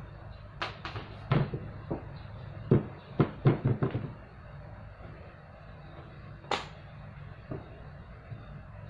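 Sharp clicks and knocks of a plastic flat mop and its plastic bucket being handled: a quick cluster of knocks in the first four seconds, then a single louder knock about six and a half seconds in.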